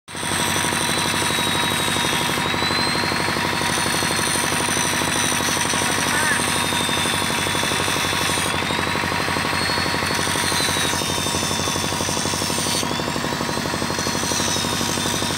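Corded electric impact tool running continuously against a steel pin joint, with rapid, even hammering and a high motor whine.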